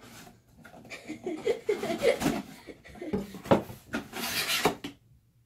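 Cardboard shipping box being opened by hand: packing tape peeled and cardboard flaps rubbing and scraping, with a louder stretch of ripping about four seconds in. The sound cuts off suddenly near the end.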